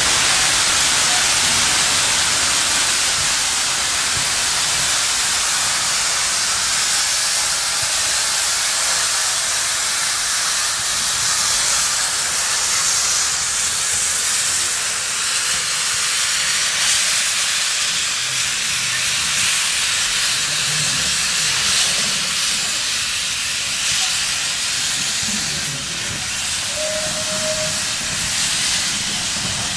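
GWR steam tank locomotive blowing steam from its open cylinder drain cocks: a loud, steady hiss that starts suddenly.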